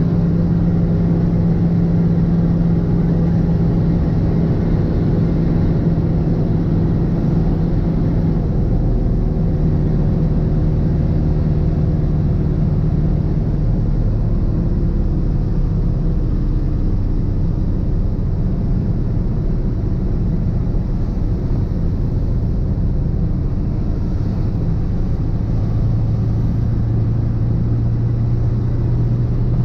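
1985 GMC 3500's 6.2-litre Detroit Diesel V8 running steadily at road speed, heard from inside the cab, under the hiss of tyres on a wet road. Its drone falls in pitch in steps, settling lower near the end as the truck slows.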